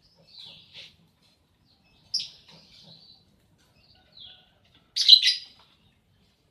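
Pet lovebird giving short, sharp chirps: a handful of scattered calls, the loudest a quick double chirp about five seconds in.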